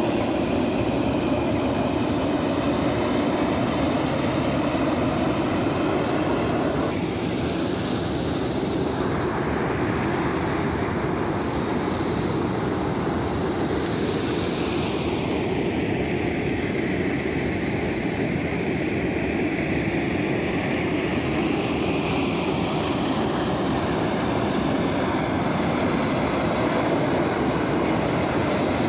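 Steamboat Geyser venting steam in its steam phase: a loud, steady rushing noise of steam pouring from the vent, unbroken throughout. Its tone changes suddenly about a quarter of the way in, then shifts more gradually near the middle.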